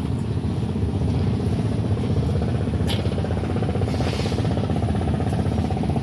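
A steady low engine rumble with a fast, even pulsing. A single click comes about three seconds in, and a short rustle about a second later.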